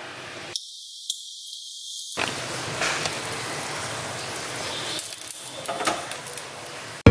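Chicken hotpot broth simmering in a clay pot: a steady hiss with scattered small pops and crackles.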